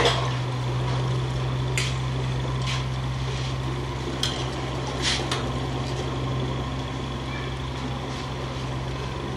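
A metal slotted spoon clinks lightly against a stainless steel saucepan a few times as an egg is lowered into the water, over a steady low hum.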